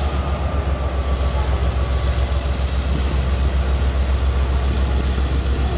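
Locomotive of a long freight train pulling away from a stop: a loud, steady, deep running sound with no breaks.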